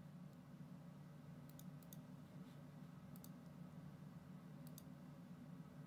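Near silence over a low steady hum, with four faint double clicks as keys are tapped on an iPad's on-screen number pad.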